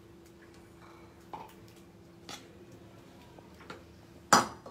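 Quiet room tone with a low steady hum and a few faint taps, then one sharp knock near the end.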